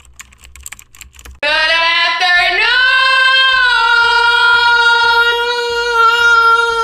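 Quick keyboard-typing clicks for about the first second and a half, then a loud voice breaks in, slides up and sings one long held note.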